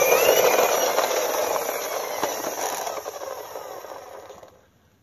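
Plastic toy fire truck pushed along concrete and let go: a whirr that rises in pitch as it is pushed, then a rolling, rattling whirr that fades away as the truck slows.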